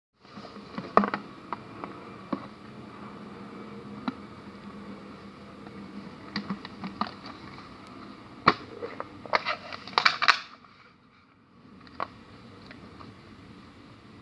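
Scattered sharp clicks and taps of objects being handled, over a steady background hiss, with a cluster of louder clicks around eight to ten seconds in.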